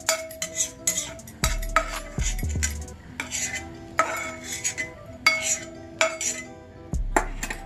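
Slotted spatula scraping and clicking against an iron kadai as fried cashews are scooped out of the ghee, in irregular strokes. Background music plays underneath.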